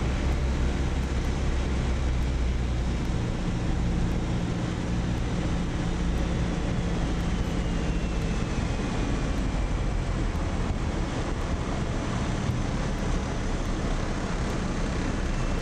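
Cockpit noise of a light aircraft landing: a steady engine hum under a rush of airflow. The low engine hum thins out about halfway through.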